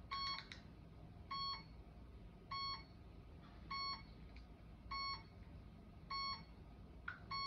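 An RC electronic speed controller beeping through the brushless ducted-fan motor before the motor spins: a short multi-tone beep repeating about every 1.2 seconds, six times.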